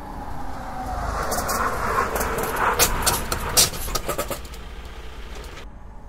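Mercedes-Benz truck approaching and braking hard to an automatic emergency stop just behind a dummy target car. The vehicle noise builds, and a tone falls as the truck slows. A run of short, sharp hissing bursts comes through the stop, then the sound cuts off suddenly near the end.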